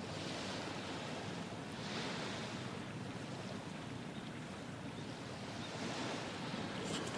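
Small sea waves washing onto the shore, swelling and fading in several slow washes.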